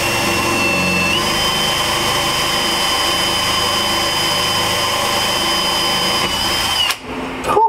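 Milwaukee M18 cordless drill boring up through a fiberglass truck canopy roof, its motor running at a steady high whine. The pitch rises a little about a second in, and the drill stops shortly before the end.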